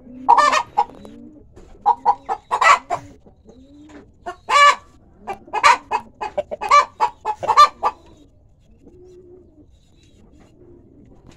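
Chickens clucking: clusters of loud, harsh squawking clucks over the first eight seconds, over a low, wavering run of soft clucks that carries on more quietly near the end.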